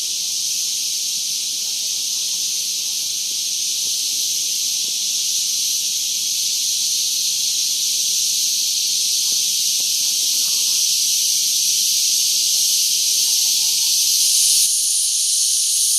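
Loud, steady, high-pitched chorus of shrilling insects, which locals call crickets (gangis), with a slight change in its tone near the end.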